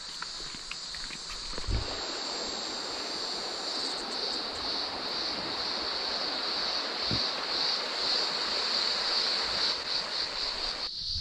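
River rapids running over a shallow stony bed, a steady wide rushing hiss that swells to full about two seconds in. Insects drone in a steady high-pitched band throughout, and footsteps on a dirt track are heard at first.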